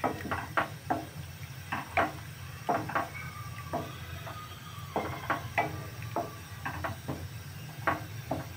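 Wooden spatula stirring soya chunk curry in a stainless steel kadhai, knocking and scraping against the pan about once or twice a second, over a steady low hum.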